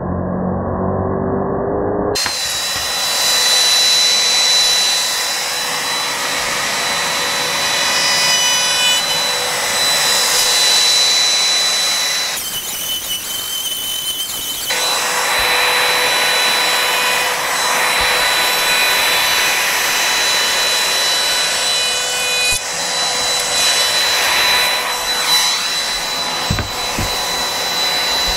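Handheld router trimming the curved edge of an 18 mm MDF panel: a steady high motor whine over the rush of the cut, in a few edited stretches. A short break comes about halfway through, after which it carries on. Music fades out in the first two seconds before the router comes in.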